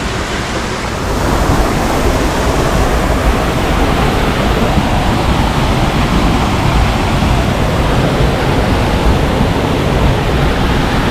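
Loud, steady rush of falling water from a waterfall, rising a little about a second in.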